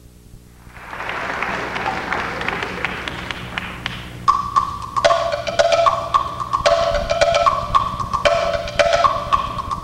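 Audience applause that dies away about four seconds in. A percussion ensemble then starts: quick sharp strokes alternating between a higher and a lower pitched note in a repeating rhythm.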